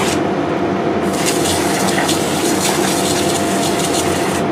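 Water from a fire hose spraying and splashing onto wet pavement and debris, a steady rushing sound. Beneath it the parked fire engine's engine runs steadily, driving the pump.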